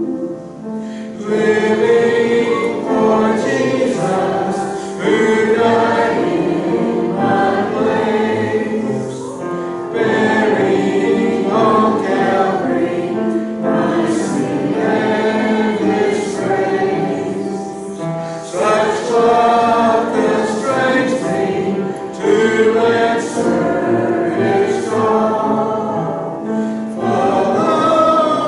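Church congregation singing a hymn together, in sung phrases of about four to five seconds with brief breaks between them.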